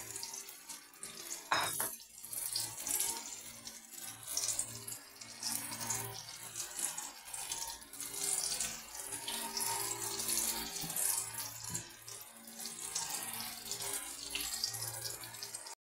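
Egg-topped eggplant halves frying in oil in a nonstick pan: a steady sizzling and crackling. A single knock about one and a half seconds in, with a low steady hum underneath.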